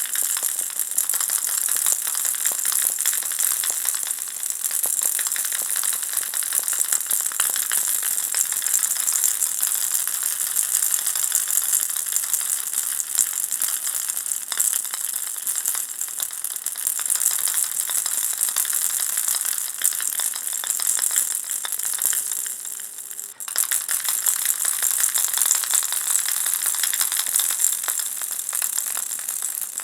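Ball-shaped baby rattle with small beads inside, shaken continuously: a dense, even patter of beads rattling against the shell. It breaks off briefly about 23 seconds in, then goes on.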